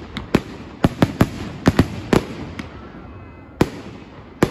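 Aerial firework shells bursting overhead. A quick irregular run of sharp bangs fills the first two and a half seconds, then two single bangs come near the end, over a wash of noise that fades between them.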